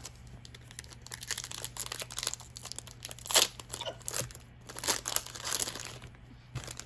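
Foil wrapper of a Magic: The Gathering booster pack being torn open and crinkled, in uneven crackling bursts, loudest about three and five seconds in.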